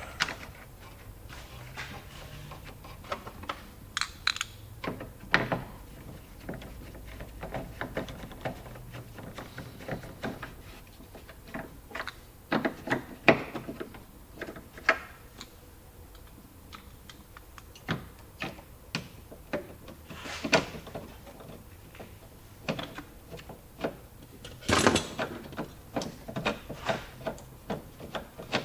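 Irregular clicks and knocks of hand tools and fasteners being worked, with ratchet-like clicking, as taillight bolts are fitted and tightened. A louder cluster of knocks comes about halfway through and again near the end.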